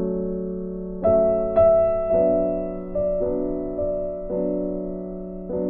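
Slow background piano music, with sustained notes and chords struck about once a second.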